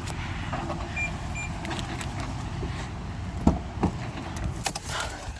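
Steady low rumble of a car, with two short high beeps about a second in and a few sharp clicks and knocks later on.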